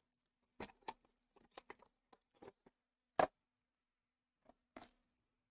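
Hands handling trading card packs and cards: a scatter of soft clicks and rustles, with one sharper tap about three seconds in.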